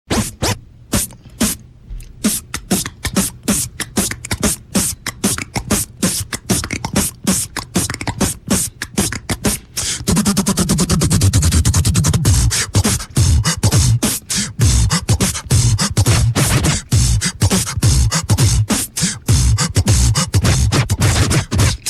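Human beatboxing: rapid mouth-made drum hits and clicks in a steady hip-hop rhythm, starting suddenly and growing louder and heavier in the low end from about ten seconds in.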